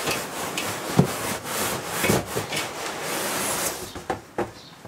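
Cardboard packaging scraping and rubbing as the flaps and inner insert of a large shipping box are pulled and folded. There is a sharp thump about a second in and a smaller one about two seconds in.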